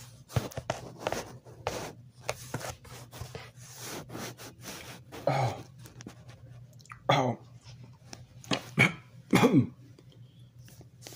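A man eating spicy ice cream from a cup: a run of small mouth smacks and clicks. A few short vocal sounds falling in pitch come through as the hot ice cream burns his mouth.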